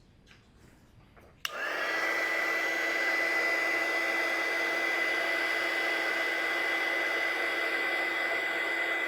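Small electric heat gun switched on about one and a half seconds in and running steadily: a rush of fan air with a high whine that rises briefly as the fan spins up, then holds.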